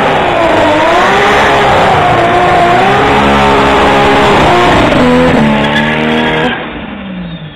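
A Nissan Skyline R33's RB27 turbocharged straight-six is held at high revs in a burnout, its note wavering, with the rear tyres spinning and squealing. About five seconds in the note settles lower and steadier. About six and a half seconds in the sound drops sharply and the engine note falls away.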